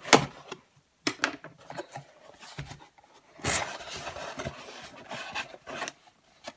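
Packaging being handled and opened by hand. A few sharp knocks and taps come first, then about two and a half seconds of scraping and rustling.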